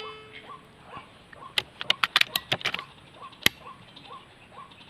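The ringing tail of a PCP air rifle shot fades in the first moment. A quick run of sharp clicks and rattles follows about one and a half seconds in, then a single sharp click, over a faint call repeated about twice a second.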